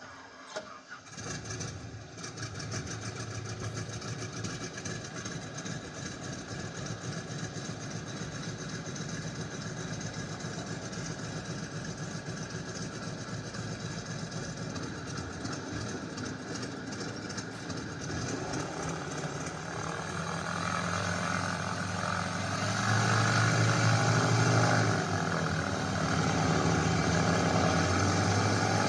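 Stearman biplane's radial engine sound, played by an aircraft sound system: the engine starts about a second in and settles into a steady idle. About two-thirds of the way through it picks up speed and gets louder, in two steps.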